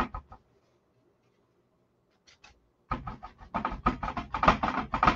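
Crumpled paper towel loaded with paint dabbed rapidly against a stretched canvas: a few taps at the start, a pause, then a fast, uneven run of many soft taps over the last two seconds or so.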